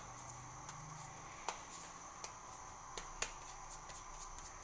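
Hands shaping soft bread dough: a few faint, sharp taps and clicks scattered over a steady high hiss.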